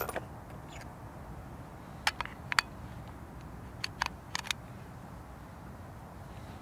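Sharp clicks of the Sako S20 rifle's detachable magazine being handled and drawn out of the action, in two quick pairs about two seconds and about four seconds in.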